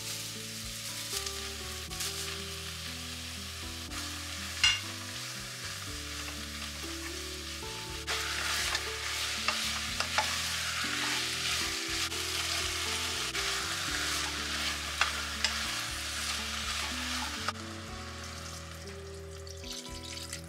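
Onions and beef sizzling in a pot while a wooden spatula stirs them, with scrapes and knocks against the pot and one sharp knock about five seconds in. The sizzling grows louder about eight seconds in and falls away a few seconds before the end.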